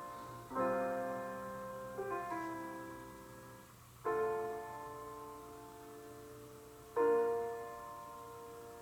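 Slow piano music played through a Lenovo Z16 laptop's built-in speakers and picked up by a microphone a couple of feet away. Chords are struck every second or three and left to ring away.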